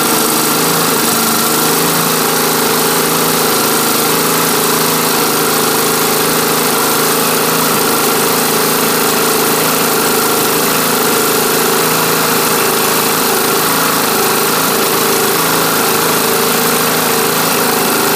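Lawn tractor engine running steadily with the choke off, just started after sitting unused for a year.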